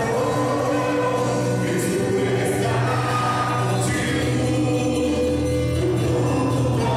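A church congregation singing a worship song together, with long held notes over a steady low accompaniment.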